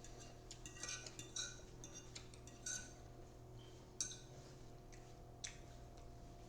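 Cutlery clinking and scraping against a dish as someone eats a salad: a scatter of light clinks with brief ringing, about one every second or so, over a steady low hum.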